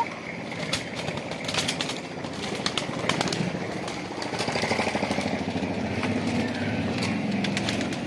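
Knocking and scuffling inside a wooden pigeon box as a person reaches among the pigeons, with pigeon wings flapping. A low steady sound sits underneath in the second half.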